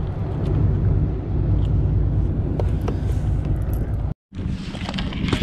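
Wind buffeting the microphone in a steady low rumble, with small scattered clicks from hands handling a caught fish. The sound drops out for an instant about four seconds in, then the wind carries on with more hiss.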